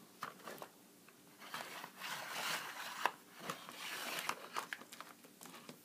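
Plastic action figures being handled: a string of light clicks and crinkly rustling scrapes, busiest in the middle.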